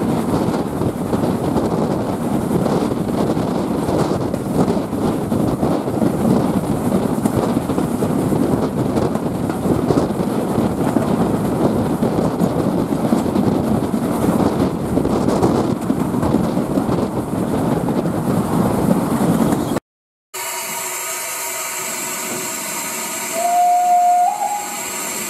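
Wind and running noise rushing past a steam locomotive's cab side at speed. After a short break there is a steady hiss, and near the end a steam whistle blows one note of about a second that steps up slightly in pitch partway through.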